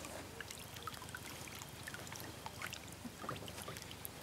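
Faint water sounds on a pond surface: scattered drips and small splashes, with short plinks throughout.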